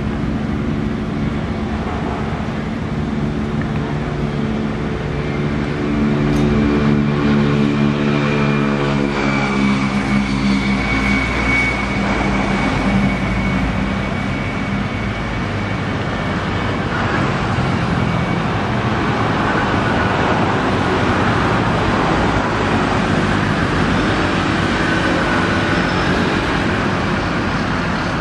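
CAF Urbos light-rail tram coming to a stop at a platform: a low electric hum of several tones for about the first nine seconds, with a thin high whine in the middle. It then gives way to the steady noise of the standing tram's onboard equipment.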